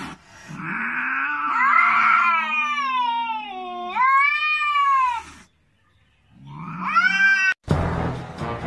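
Domestic cat yowling: two long, drawn-out caterwauls that slide up and down in pitch, the first about five seconds long with a low growl-like tone beneath it, the second shorter and rising, cut off suddenly.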